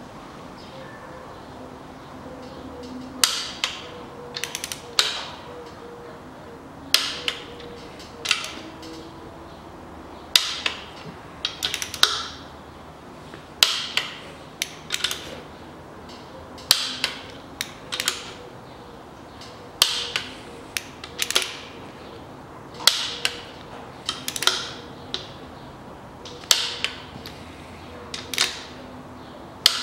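Click-type torque wrench tightening the main bearing cap bolts of a Toyota 1KR engine to 59 Nm: sharp ratcheting clicks in clusters of two or three, one cluster about every three seconds, bolt after bolt.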